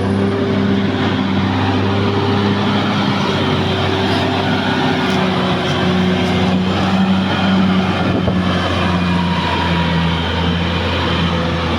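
Caterpillar D6R XL bulldozer's diesel engine running at a steady, even pitch over a dense mechanical noise.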